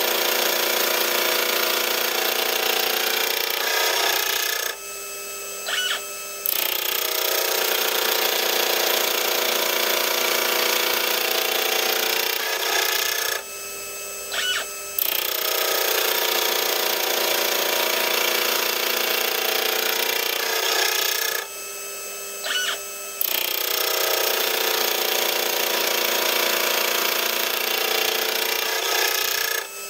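Gear cutter on a lathe-mounted milling spindle cutting teeth into a change gear blank: a steady high-pitched cutting sound lasting six to seven seconds per pass. It breaks off three times for under two seconds, and in each break a faint whine rises and falls as the stepper-driven rotary table indexes the blank to the next tooth.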